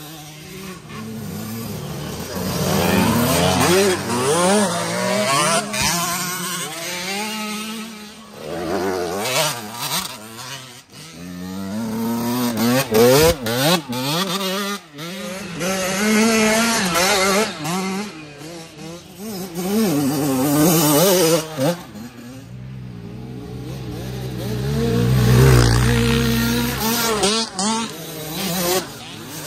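Small youth dirt bike engines revving hard as several bikes climb past one after another, each swelling and fading with the pitch rising and falling through throttle and gear changes. The loudest pass comes near the end.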